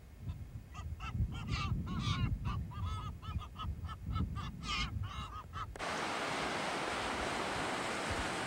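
A seabird colony calling: many short, harsh honking calls in quick succession. About six seconds in, this cuts abruptly to the steady wash of surf on the beach.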